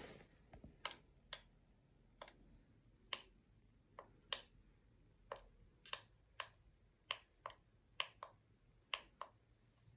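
Push buttons on a handheld six-axis MPG pendant with an LCD being pressed: a series of short, sharp clicks at uneven intervals, roughly one or two a second.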